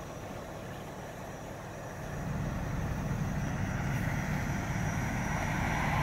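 Fire engine's diesel engine running, a steady low rumble that grows louder over the last few seconds.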